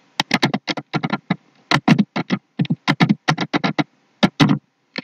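Computer keyboard typing: a quick, irregular run of keystrokes with a couple of short pauses.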